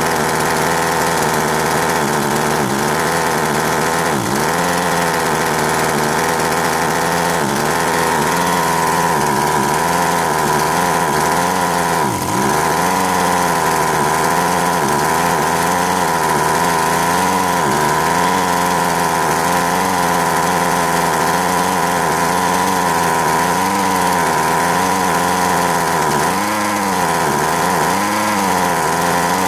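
Two-stroke engine of a McCulloch Mac 441 chainsaw running steadily, its pitch wavering and dipping briefly a few times. It stays up on the revs and will not settle back to idle, a carburettor the owner fears he has set too rich.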